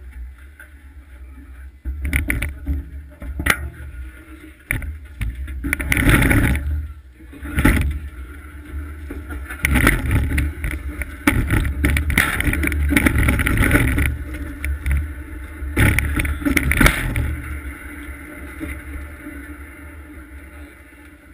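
Steel runners of a 1939 vintage bobsled grinding and rumbling over the ice as the sled slides slowly along the run, with irregular knocks. It starts about two seconds in, is loudest in several spells, and dies away near the end as the sled comes to rest.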